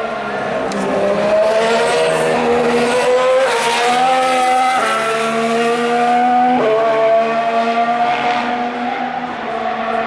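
Formula 1 car's 1.6-litre V6 turbo-hybrid engine accelerating hard out of a corner, its pitch climbing and dropping sharply at three upshifts a few seconds in, then holding a high, steady note as the car runs on.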